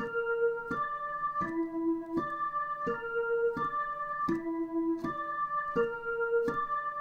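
Dutch ambulance siren pattern: electronic organ-like tones stepping through a repeating broken chord, a new note about every 0.7 s, each change starting with a sharp click. A higher note comes back every other step between two alternating lower notes.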